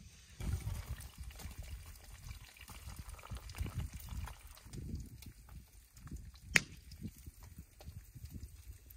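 Liquid poured from a blue enamel coffee pot into a small mug, trickling. Later a single sharp click.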